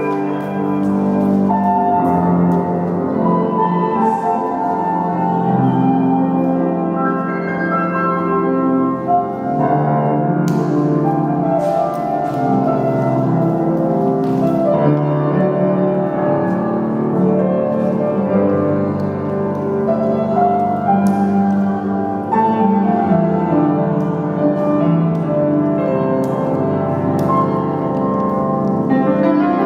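Classical piano music playing steadily, with a flowing melody over changing chords.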